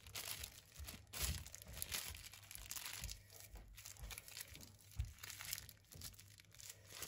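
Thin plastic bags and plastic film crinkling as they are handled while bagging fermented pork mixture: irregular crackles, with sharper ones about a second in and about five seconds in.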